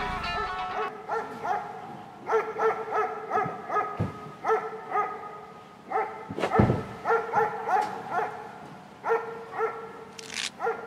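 A dog barking over and over in quick runs of short barks. Two low thumps come through, the louder one about six and a half seconds in.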